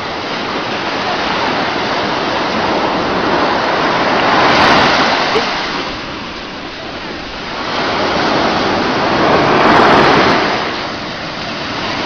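Sea surf rushing onto the shore, the wash swelling and easing twice, about five seconds apart.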